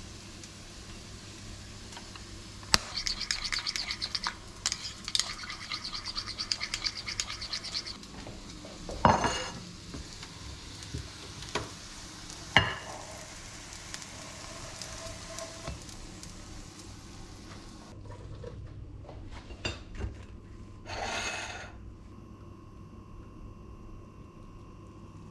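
A spoon stirring mayonnaise in a small ceramic bowl: a quick run of clinks and scrapes for about five seconds. It is followed by a few separate knocks of a frying pan against a plate.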